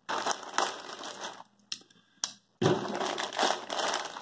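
A plastic poly mailer bag slit open with a blade and crinkling as a hand pulls it open and reaches inside: bursts of crinkling with a couple of sharp clicks, then steady crinkling from a little past halfway.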